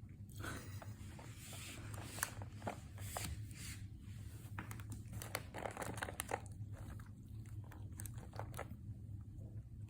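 Cardboard and plastic packaging of a cat advent calendar being torn open and crinkled: a busy run of small crackles, rips and clicks that thins out for a moment about seven seconds in.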